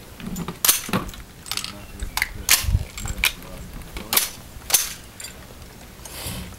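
Rifle shots from competitors on a highpower match firing line: a string of sharp reports at irregular intervals through the first five seconds, some louder and closer than others.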